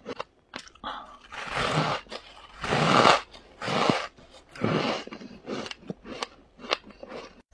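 Freezer frost being bitten off and chewed: a run of irregular crisp crunches with small sharp snaps between them, the loudest a couple of seconds in.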